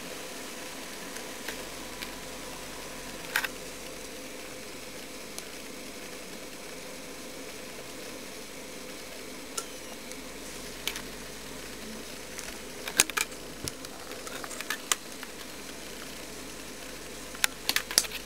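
Philips notebook running with a steady hiss and faint hum from its cooling fan, and sharp clicks of keys pressed on its keyboard, several in quick succession in the middle and near the end.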